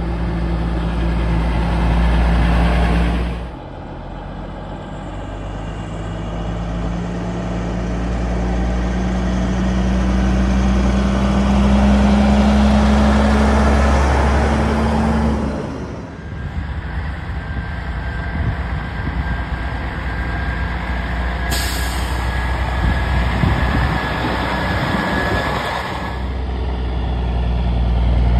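Heavy diesel truck engines running as trucks drive past one after another, one engine climbing steadily in pitch as it pulls away. About three quarters of the way through comes a sudden hiss of air, lasting a few seconds, typical of air brakes.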